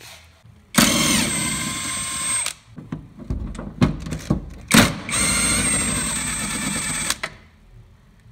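Cordless drill-driver spinning out the bumper's fixing bolts in two runs of about two seconds each: a steady whine that dips slightly in pitch as it starts and then holds. A few short knocks and clicks come between the runs.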